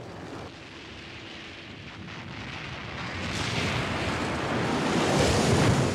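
Cartoon sound effect of a huge eruption of water: a rushing, rumbling noise that swells steadily and is loudest just before the end, then starts to die away.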